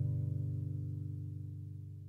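Background music: the song's last chord ringing out and fading steadily away.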